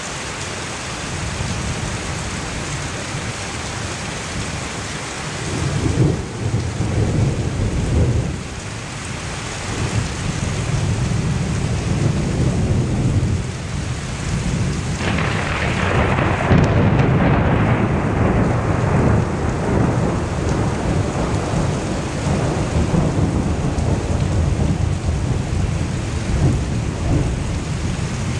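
Thunderstorm: heavy rain hissing steadily, with thunder rumbling from about six seconds in and rolling on, in waves, through the rest.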